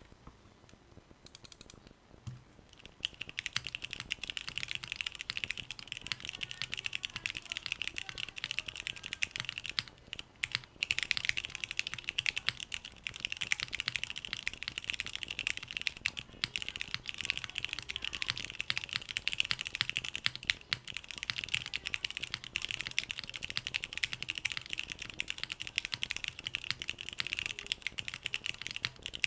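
Fast continuous typing on a MONOKEI x Hand Engineering Kage mechanical keyboard with stock Cherry MX Black Hyperglide linear switches, a polycarbonate plate on a gummy O-ring mount, and GMK Cherry-profile keycaps. A few light taps come first, then dense rapid keystrokes start about three seconds in, with a brief pause about ten seconds in.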